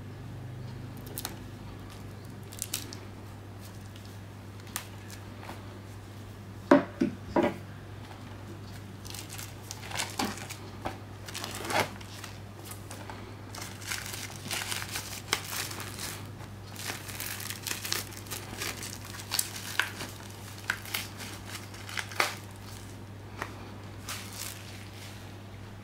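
Plastic shrink-wrap film being slit and peeled off a Blu-ray case, crinkling and crackling in irregular bursts. A few sharp clicks, the loudest sounds, come about seven seconds in. A steady low hum runs underneath.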